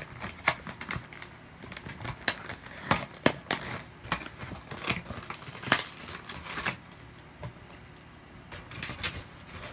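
Plastic packaging crinkling and clicking in irregular sharp snaps as a toy figure is fitted back into its plastic. It goes quieter for a couple of seconds about seven seconds in, then the snaps resume.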